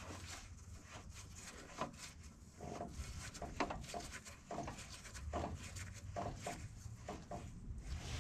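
Faint, irregular knocks and scrapes of metal parts being handled as the transmission pump and its jack are worked by hand, over a low steady hum.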